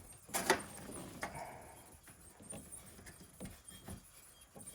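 Light knocks and clatter of a greenhouse door and its hinge being handled and fitted, a sharper knock about half a second in and another a moment later, then a few softer taps.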